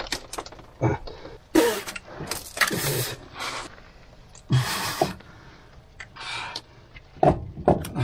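Irregular metal knocks, clanks and scraping as a heavy starter motor is worked up into place on an old bulldozer's engine by hand, a few of the knocks with a dull thud.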